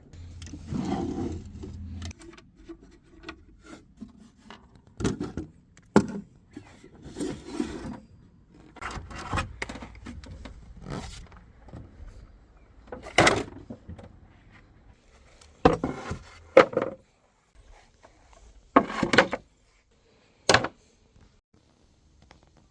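Wood being worked and handled: irregular knocks and scraping strokes of wooden pieces, with a few sharper, louder knocks in the second half.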